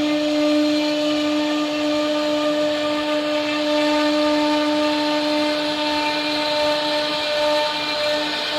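CNC router spindle running with a steady high whine as its bit carves solid teak, with a rough cutting hiss under the tone.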